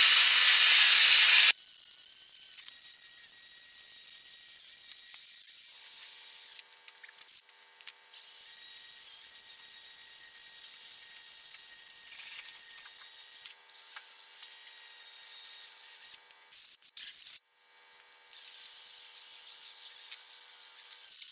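Drill-driven 800-grit sanding disc rubbing across a plastic truck headlight lens: a steady hissing scrape that stops briefly a few times as the pad is lifted. A louder, fuller hiss fills the first second and a half.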